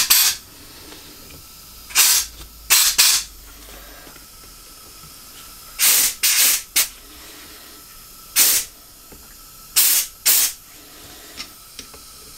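Short blasts of compressed air from an air blow gun, about nine in all, each well under a second, blown through the jets and passages of a Honda CB750 SOHC carburettor bank to check they are clear, with the gun's pressure turned down a little.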